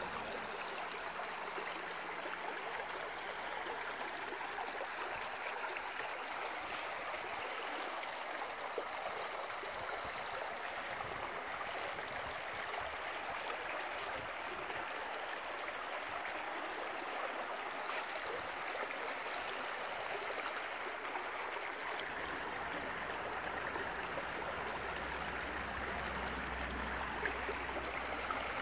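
Shallow woodland brook rippling over stones and debris: a steady, even babble of running water.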